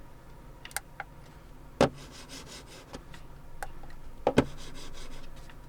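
Plastic wireless mouse being handled: several separate sharp clicks, two of them close together about two-thirds of the way through, over a soft rubbing and scraping of the mouse against the hand and desk, as its DPI setting is switched.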